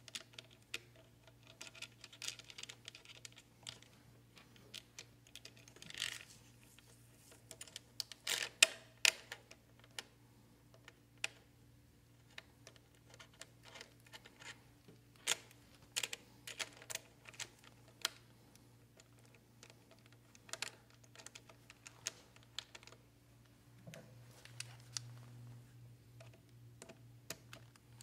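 Irregular small clicks and taps of a metal hinge bracket and screws being handled and set by hand against a vinyl window sash, with a sharper knock about eight and a half seconds in, over a faint steady low hum.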